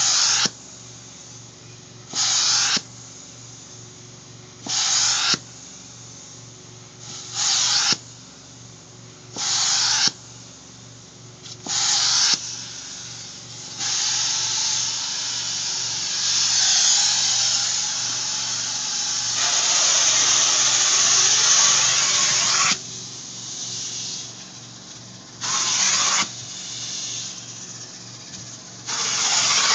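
Upholstery extraction tool making passes over a fabric sofa cushion, with a steady hum from the extractor under it. Each stroke brings a short burst of spray-and-suction hiss, about every two and a half seconds. In the middle the hiss runs on unbroken for about nine seconds, then the short bursts return twice near the end.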